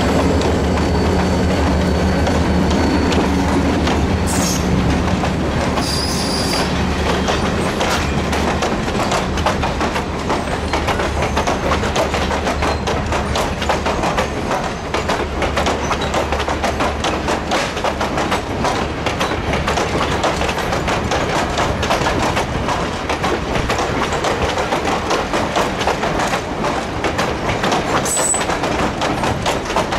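Reading & Northern diesel locomotive's engine drones as it passes, fading out over the first several seconds. Then a line of heavyweight passenger coaches rolls by, steel wheels clattering steadily over the rails, with brief high wheel squeals about four to six seconds in and again near the end.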